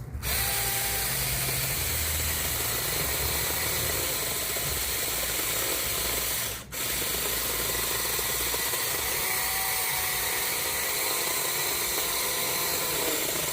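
Battery-powered portable chainsaw running at full speed, its chain whirring steadily, with one brief stop about halfway through before it runs again.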